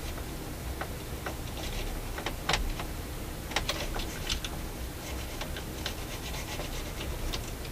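Toothbrush bristles scrubbing the metal levers of a turntable's tone-arm mechanism, making irregular scratchy rubbing strokes.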